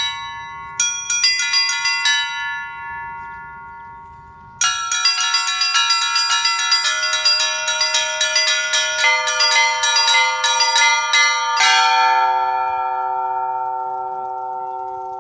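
Russian Orthodox church bells rung by hand. First a few strikes on the small high bells ring out and die away. About a third of the way in comes a fast run of strikes across several bells; near the end a lower bell joins on one last strike and the chord rings on, fading slowly.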